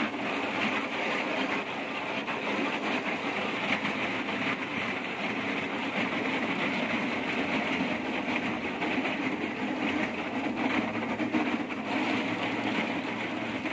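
Micro-trenching machine running and cutting a narrow slot in wet road pavement: a steady, unbroken grinding of the cutting wheel over its engine.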